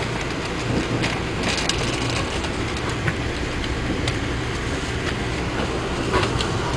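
Amtrak passenger train running at speed, heard from inside the passenger car: a steady rumble of wheels on rail, with a few short sharp clicks.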